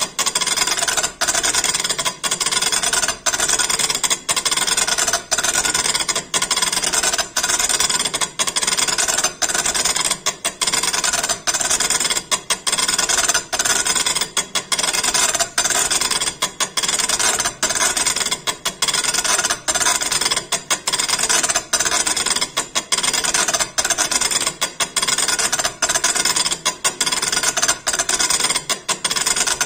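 Impact stone-engraving machine hammering its needle into granite: a dense, loud rasping buzz, broken by short gaps every half second or so as the head moves between strokes of the pattern.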